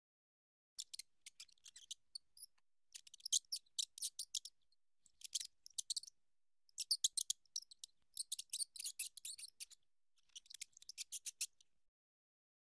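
Faint, rapid high-pitched clicking in about six short clusters, each lasting around half a second to a second.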